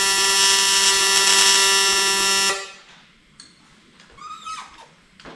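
Electric welding arc running steadily, a loud buzz with a hiss, as steel brackets are welded; it cuts off suddenly about two and a half seconds in, followed by faint handling noises.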